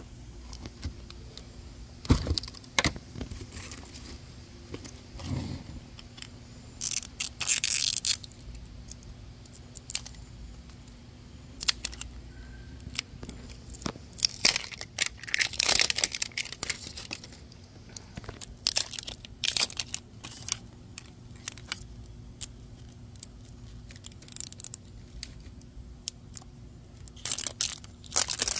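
Handling of plastic toy packaging: the seal strips on Toy Mini Brands plastic capsule balls are peeled off in several short tearing rips, with scattered plastic clicks and rattles in between.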